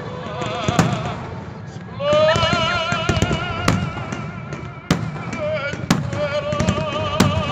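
Aerial fireworks going off, with sharp bangs about once a second and crackle between them. Music comes in about two seconds in, with a singer holding long notes with vibrato.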